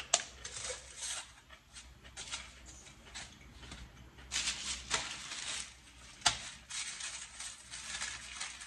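Paper wrapping crinkling and rustling in irregular bursts as a bundle of tortillas is unwrapped and handled, with a few sharp clicks.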